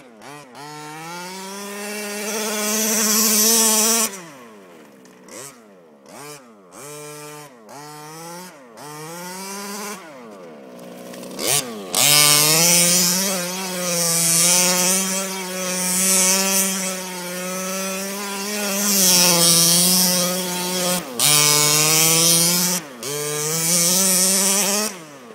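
Small two-stroke petrol engine of a 1/5-scale Rovan RC car revving as it drives: it climbs to high revs, then gives a run of short throttle blips, then holds high revs with the pitch wavering up and down, dropping off briefly twice near the end.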